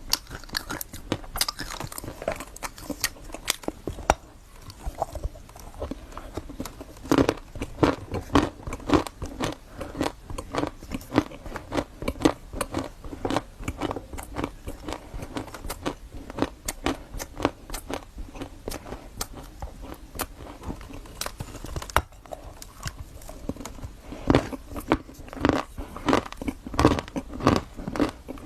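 Close-miked eating: crisp crunching bites and chewing of a crumbly pastry, with rapid crackles throughout and louder bursts of crunching about a quarter of the way in and again near the end.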